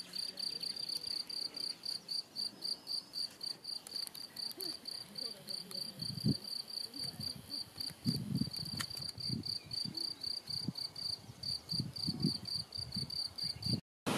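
A cricket chirping steadily: an even train of high-pitched pulses, about five a second. Irregular low rumbles come through in the second half, and the sound cuts off abruptly just before the end.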